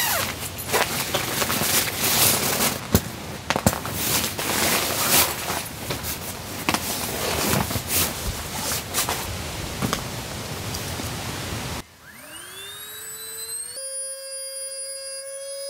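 Nylon stuff sack and sleeping mat rustling and crinkling with sharp clicks as the mat is pulled out and unrolled. About twelve seconds in the rustling stops, and a small electric air pump (Crystal Cloud) whirs up in a rising whine, then settles into a steady whine as it inflates the mat.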